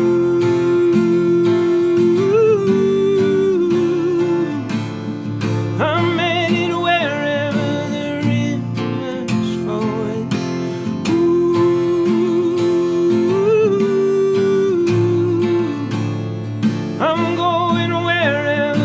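Acoustic guitar strummed through an instrumental break, with a sustained melody line over it that swells twice with vibrato.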